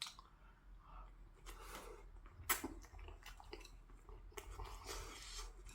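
A person chewing food close to the microphone, with soft wet mouth clicks and one sharper click about two and a half seconds in.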